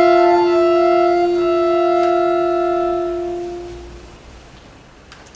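Ballone Burini piano accordion holding the final chord of a piece, its notes dropping out one by one until the last low note fades away about four seconds in.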